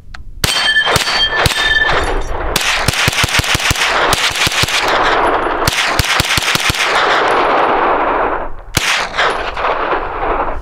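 A 9mm carbine firing 115-grain FMJ rounds at steel plates. Three shots come about half a second apart with the steel ringing after them. A fast string of shots, about five a second, runs for some six seconds, then a few more shots follow near the end.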